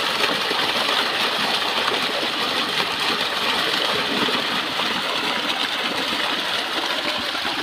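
Dense, continuous splashing of many fish thrashing at the surface, crowded together in a drag net pulled into the shallows: a steady patter of small slaps and spatters.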